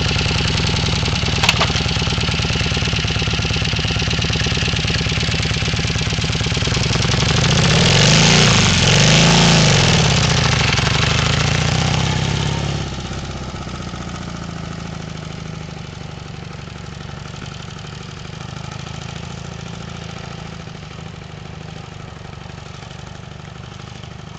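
Motorcycle engine running steadily, its pitch and loudness rising and falling about eight to ten seconds in as the bike goes by, then fainter after about thirteen seconds as it moves off.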